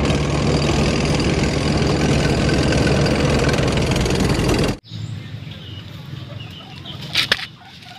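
Tank engine sound effect: a loud, dense rumble with a steady low hum that cuts off suddenly about five seconds in. A quieter low background with a couple of clicks follows.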